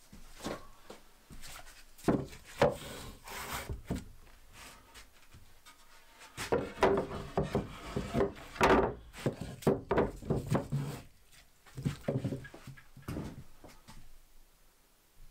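A weathered plank and a split birch log set down and shifted on a wooden workbench: knocks and scraping of wood on wood. The sounds come in two busy spells, with a few lighter knocks near the end.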